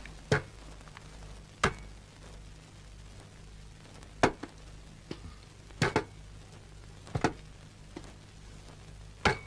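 Handguns and other belongings set down one at a time on a desk: about six separate knocks a second or two apart, two of them doubled.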